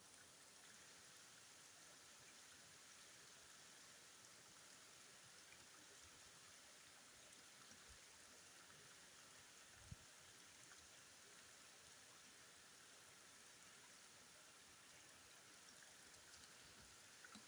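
Near silence: a faint steady hiss of outdoor ambience, with one light knock about ten seconds in.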